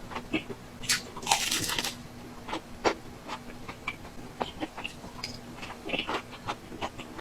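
Close-up eating sounds of spicy mala small buns: a loud crunchy bite about a second and a half in, then chewing with many small crunches and wet clicks of the mouth.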